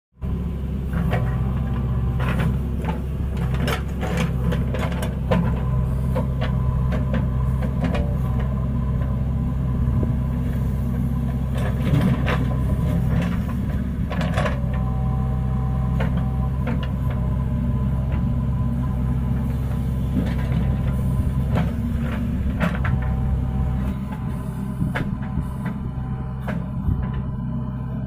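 JCB 3DX backhoe loader's diesel engine running steadily under load, with scattered clanks and knocks as the backhoe bucket digs and scrapes through soil.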